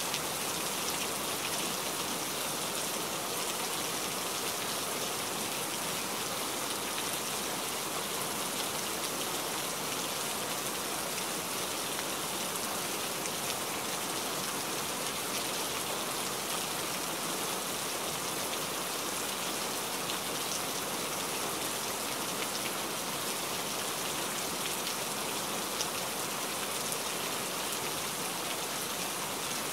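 Steady rain falling on forest leaves: an even, continuous hiss with scattered individual drop sounds.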